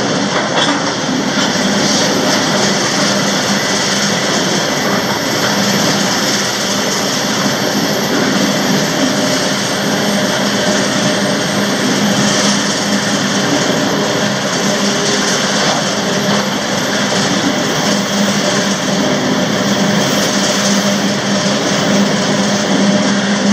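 Freight train rolling along the rails: a loud, steady running noise with a constant low hum underneath.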